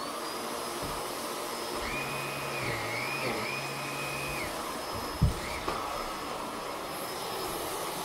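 Upright vacuum cleaner running steadily, with a high thin motor whine over its rushing noise. A short wavering tone rises above it for a couple of seconds, and there is one sharp thump about five seconds in.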